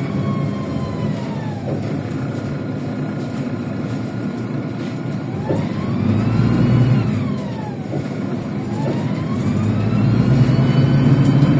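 MAZ-103 city bus heard from inside the cabin while driving, its diesel engine rumbling under a drivetrain whine that rises and falls with road speed. The whine falls in the first two seconds as the bus slows, swells and drops again around six to eight seconds, then climbs as it speeds up near the end, where the engine also grows louder.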